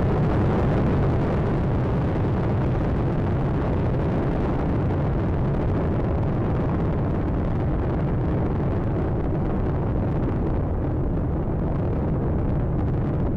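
Space Shuttle Atlantis's solid rocket boosters and main engines firing during ascent: a loud, steady, deep noise that thins slightly at the top in the second half.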